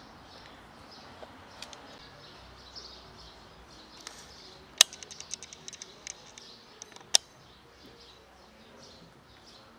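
Outdoor ambience with faint, steady high chirping in the background. About five seconds in there is a quick run of sharp clicks, and a single louder click follows about two seconds later.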